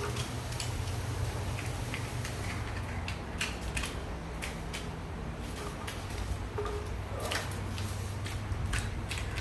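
Scattered sharp clicks and scrapes of a hand tool working over the top of an old, weathered 283 Chevrolet small-block V8 to dig out debris, over a steady low hum.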